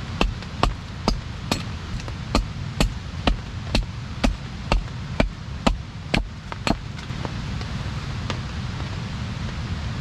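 Wood being chopped by hand with a blade: a steady run of about fifteen sharp strikes, roughly two a second, that stops about seven seconds in.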